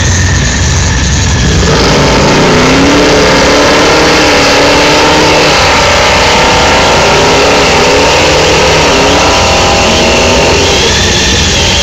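Drag-racing cars' engines at the start line, first running lower, then from about two seconds in revving hard again and again, pitch rising and falling, until they ease near the end.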